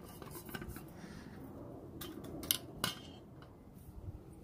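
A metal tumbler and other goods being handled and set down: a few light clinks and knocks, the sharpest about two and a half seconds in.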